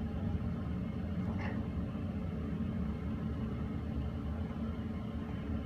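KONE KSS220 hydraulic elevator car travelling down: a steady low hum and rumble of the ride, with a faint short tick about a second and a half in.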